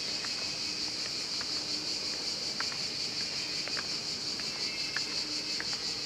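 Cicadas singing in chorus: a steady, high-pitched buzz with a fast pulsing texture.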